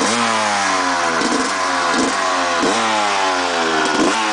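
Dirt bike engine revving in repeated throttle blips: the pitch jumps up sharply and sinks back slowly, about four times, roughly every second and a half.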